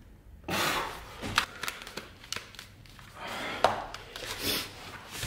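An old dagger being forced out of its stiff, tape-wrapped cloth scabbard: two stretches of crinkling and scraping, the first about half a second in and the second about three seconds in, each with a sharp click.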